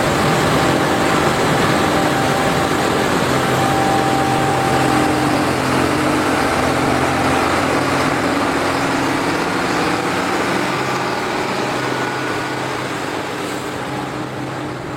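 Case IH Axial-Flow combine running steadily while harvesting corn: a steady engine tone over the rushing noise of the threshing machinery. It fades over the last few seconds.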